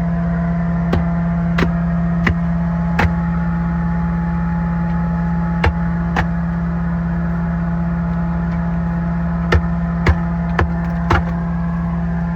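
Sewer vacuum truck running steadily, a constant low drone with a hum above it, while sludge is sucked out of an opened sewer line. About ten short sharp knocks come through it, a few in the first three seconds, two near the middle and four close together near the end.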